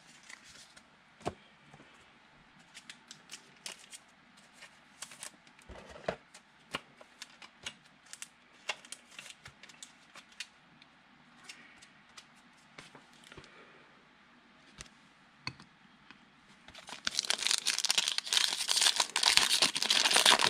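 Trading cards being handled, with scattered light clicks and taps. Near the end comes about three and a half seconds of a foil 2019 Panini Prestige pack wrapper being torn open and crinkled.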